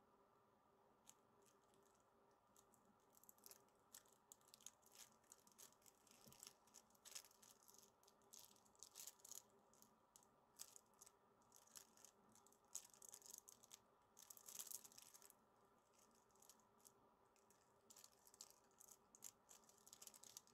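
Near silence: faint room tone with a low steady hum, and scattered faint clicks and rustles from about three seconds in.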